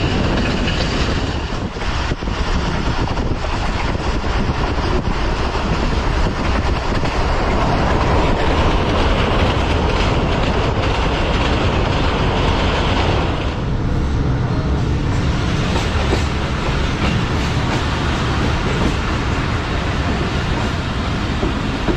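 Passenger train running on the track: a steady, loud rumble with the wheels clattering over rail joints. A little past halfway the hissy upper part of the noise falls away and the running sound softens.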